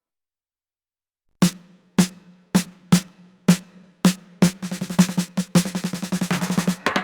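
Background music: after about a second and a half of silence, a drum strikes about twice a second, then quickens into a roll that builds toward the full track.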